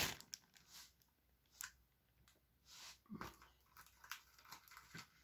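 Near silence broken by faint, scattered handling noises: a few soft clicks and short rustles, spread unevenly through the quiet.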